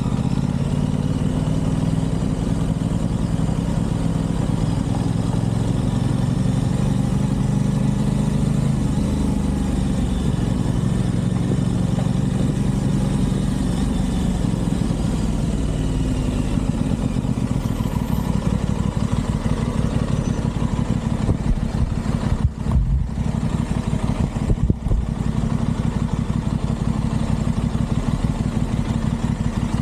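Aprilia Tuono 660 Factory motorcycle's parallel-twin engine running under way, its pitch rising and falling with the throttle. The sound drops briefly twice, about 22 and 25 seconds in.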